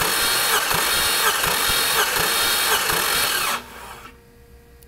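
Starter motor cranking a salvage-yard GM LS V8 over without it firing, during a compression test of its weak cylinder. A steady whir with a regular beat from the compression strokes, cutting off suddenly about three and a half seconds in.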